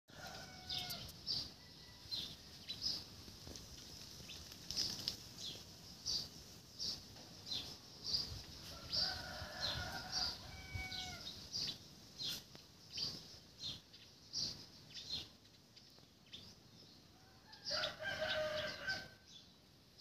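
Outdoor bird sounds: a bird gives short high chirps over and over, about once a second, while chickens call a few times, longer pitched calls near the start, in the middle and near the end. The lanternflies on the trunk make no sound.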